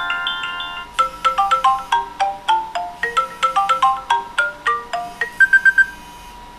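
iOS 7 ringtone previews playing on an iPhone: held, overlapping chime notes end about a second in, then a quick run of separately struck bright notes follows, closing with five fast high repeated notes near the end.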